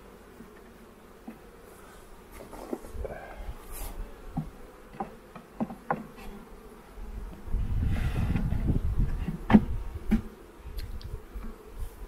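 Honeybees buzzing around an open hive box full of bees, with scattered short knocks as the wooden frames are handled. A low rumble comes in a little past halfway and fades near the end.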